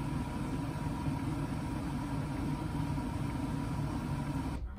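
A steady low mechanical hum, like a motor or appliance running, that cuts off suddenly near the end.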